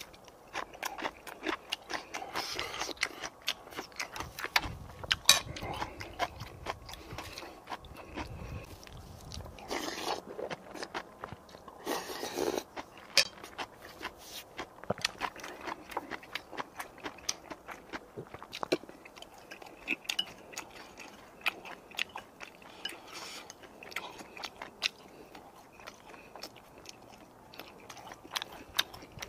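Close-miked eating sounds: a man biting and chewing food, with many short crunches and clicks.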